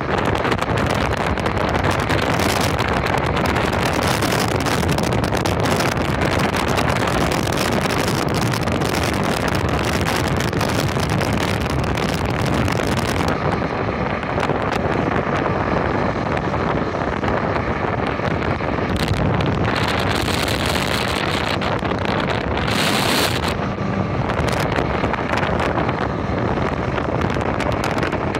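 Small speedboat's outboard motor running at speed, with water rushing past the hull and wind buffeting the microphone. The high hiss drops away about halfway through.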